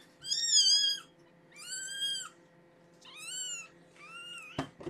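A week-old newborn kitten mewing: four high, thin cries, each rising then falling in pitch, the first the loudest. A short knock near the end.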